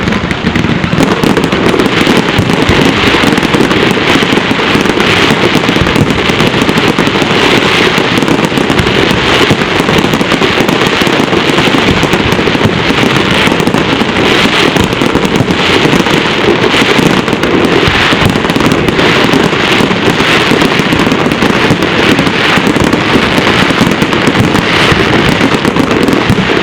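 Many fireworks going off at once: a loud, dense, continuous barrage of bangs and crackling with no pause.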